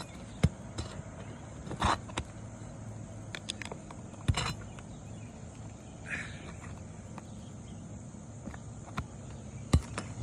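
Scattered clicks, knocks and a scrape of a hand tool working under asphalt shingles to pull roofing nails, over a steady high hiss. The sharpest knocks come about two seconds in, about four and a half seconds in and near the end.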